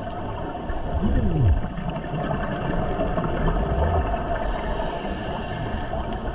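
Underwater sound picked up by a dive camera: a steady wash of water noise, with a brief falling tone about a second in and a hiss joining about four seconds in.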